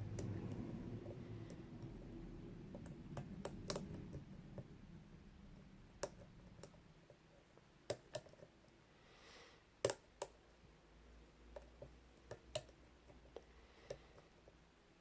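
Pin-tumbler padlock being picked: faint, irregular small metallic clicks of the pick working the pins and the tension wrench shifting in the keyway, about fifteen over the stretch, with a low rustle of handling in the first few seconds.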